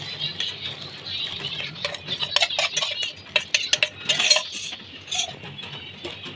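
Metal utensils clinking and clattering against a cooking pot as corn is put into hot water to boil: a run of quick sharp clinks, thickest in the middle, over a steady hiss.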